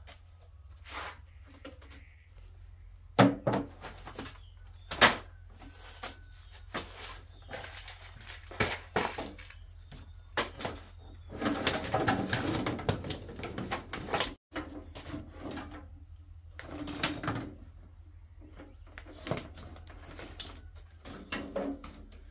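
Steel box-section bars and hand tools being handled: a run of sharp metal knocks and clanks, the loudest two about three and five seconds in, with a stretch of rattling around the middle as tools are rummaged in a plastic crate.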